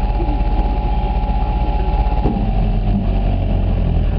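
Several ATV engines idling. About two seconds in, the engine note shifts and sags slightly lower.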